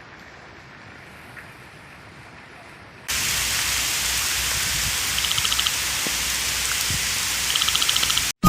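Rain falling steadily; about three seconds in it abruptly becomes a much louder, heavy downpour hiss. Twice during the downpour a brief, rapid trill sounds through it.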